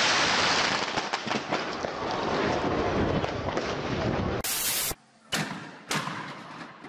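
A firework going off at close range: a loud, dense hiss full of crackles as it sprays sparks, lasting about four seconds. After a short burst of hiss, a few separate sharp pops come from a second firework.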